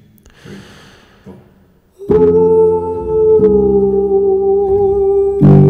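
Soundtrack music: faint for about two seconds, then loud held chords come in with a slightly wavering top note, changing chord twice.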